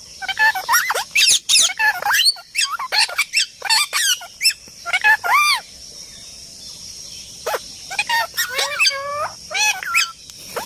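Parrot calling in quick runs of short squawks and whistled chatter, with a pause of about two seconds just past the middle.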